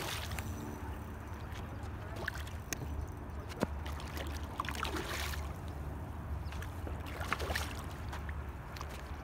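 Hooked trout thrashing and splashing at the water's surface in short bursts, over a low steady rumble.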